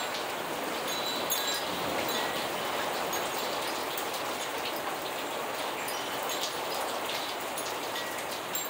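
Steady rainfall, with scattered brief high-pitched pings and tinkles over it.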